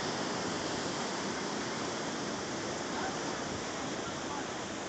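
Sea waves surging and breaking over a rocky shore, a steady rushing of surf.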